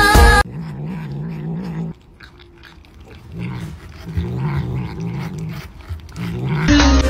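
A tabby cat growling in a low, wavering rumble as it licks and eats from a treat cup, with short wet licking and chewing clicks between the growls.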